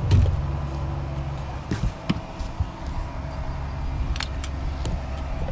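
Mercury four-stroke outboard motor idling steadily, with a few short knocks and clicks from the rod and rod holder being handled.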